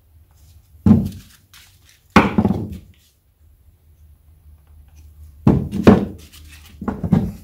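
Wooden knocks and thunks as wooden hive-frame parts and a glue bottle are handled on a wooden workbench during gluing: two single knocks a little over a second apart, then a quick run of knocks near the end.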